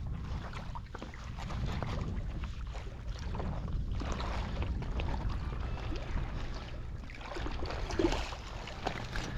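Steady wind rumble on the microphone, with small splashes and scattered crunching clicks as a hooked nurse shark is drawn through the shallows onto a gravelly, rocky shore.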